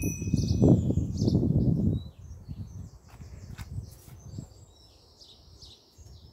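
A bell's last ring fades out at the start over a loud low rumble of wind on the microphone. The rumble drops away after about two seconds, leaving birds chirping and singing.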